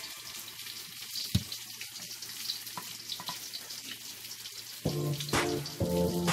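Hot cooking oil sizzling and crackling in a pan, a faint, uneven patter of small pops. Background music comes in about five seconds in.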